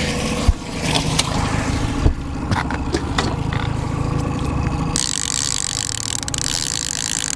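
Outboard motor running steadily at trolling speed, with a few sharp knocks about half a second and two seconds in, and a steady hiss that starts suddenly about five seconds in.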